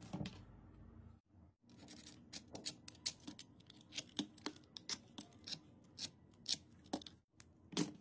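Hands working the stripped end of a USB cable: a short rustle at the start, then a run of irregular sharp clicks and crackles from the thin insulation and fine bare wire strands being handled and twisted.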